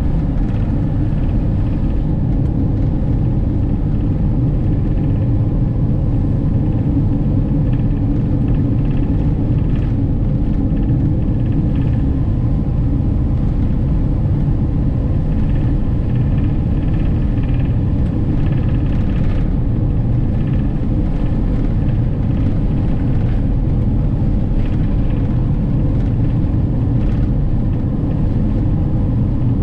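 Camper van driving at steady highway speed: a constant low rumble of tyres on the road and the engine.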